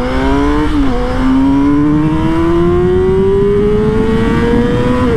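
Yamaha R6 RJ15's inline-four engine through an Arrow slip-on muffler, accelerating hard under load. The pitch climbs steadily, dips briefly at a gear change about a second in, climbs again in a long pull, and drops at another upshift near the end, with wind rush underneath.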